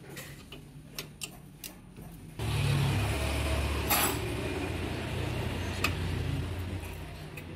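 A few light clicks and taps as hands work a metal AC pipe clip in an engine bay. About two and a half seconds in, a low, steady engine-like hum starts abruptly, with a sharp click or two over it, and fades near the end.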